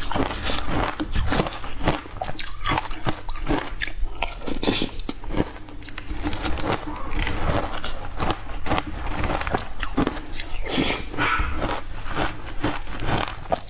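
Ice being bitten and crunched between the teeth: many sharp crunches in quick, irregular succession.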